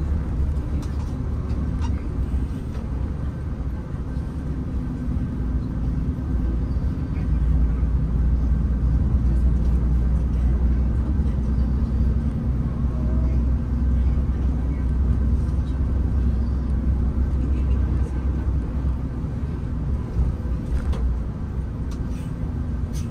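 Steady low engine and road rumble heard from inside a moving vehicle, growing louder from about seven seconds in and easing off near the end.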